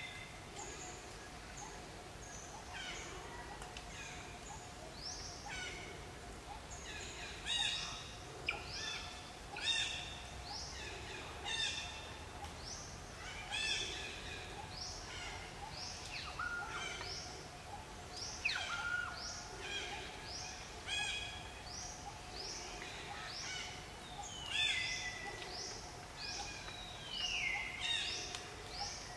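Wild birds calling in the trees: a busy run of short chirps and whistles, one every second or two, several of them sliding down in pitch. A faint steady hum runs underneath.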